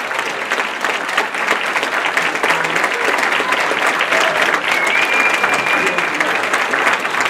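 Audience applauding steadily, with a short high steady tone about five seconds in.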